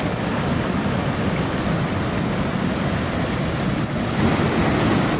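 Ocean surf washing in between flat rock shelves, a steady rush of water.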